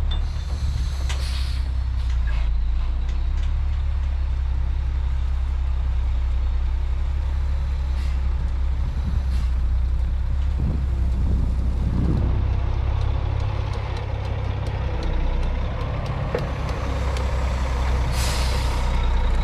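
Dump truck's diesel engine running steadily under load, with a hiss of air from its air brakes about a second in and again near the end.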